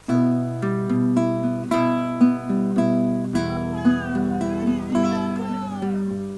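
Acoustic guitar music with picked notes, starting abruptly. A higher line that slides in pitch joins midway.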